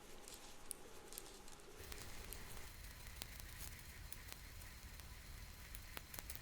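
Knitting needles clicking lightly and irregularly as stitches are knit in quick succession.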